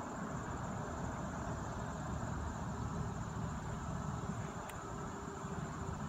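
Insects trilling outdoors: a steady, high, rapidly pulsing chirr over a low, even outdoor noise, with a single sharp click about three quarters of the way through.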